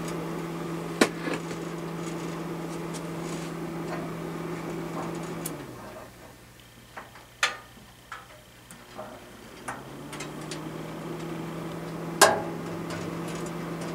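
Fan motor of a vintage Grants 1500-watt fan-forced heater running with a steady hum. About five and a half seconds in it slows and quietens, with a few sharp clicks, and about ten seconds in it speeds back up to its steady hum.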